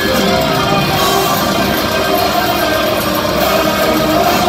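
Melodic death metal band playing live, a loud, dense and unbroken wall of music with guitars.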